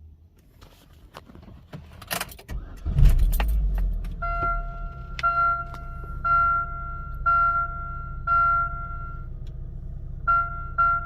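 Keys rattling and clicking, then the 2009 Chevy Cobalt's engine starts about three seconds in and settles into a steady idle. A dashboard warning chime then sounds about once a second, stops briefly, and starts again near the end.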